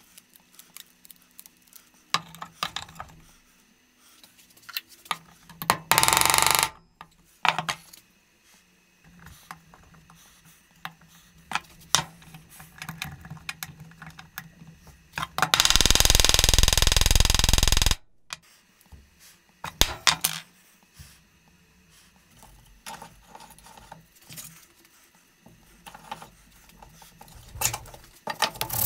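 Small aluminium pieces and metal tools clinking and tapping on a workbench, a string of short sharp knocks. About six seconds in there is a brief loud noisy burst, and past the middle a louder steady noise runs for about two and a half seconds, then stops suddenly.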